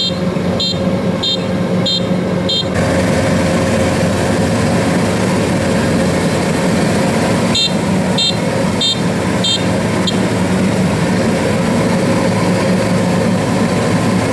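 Rice combine harvester's engine running steadily under load, with a repeating electronic warning beep about three times every two seconds. The beeping stops about three seconds in as the machine noise grows louder, and comes back for a couple of seconds past the middle.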